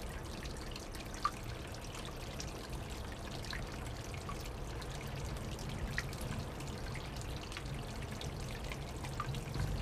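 Water seeping from a layered rock cliff and dripping into a shallow pool: many drops pattering steadily, much like rain, over a low steady rumble.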